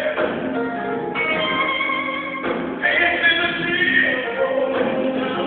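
Live band playing on stage, with electric guitars, drums and keyboard and a voice singing long held notes, heard from the audience through a phone's microphone.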